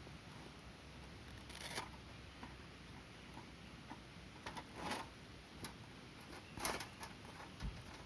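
Wood fire crackling in a fire pit: a few scattered sharp pops and snaps at irregular intervals, the strongest about two thirds of the way in, over a faint steady background.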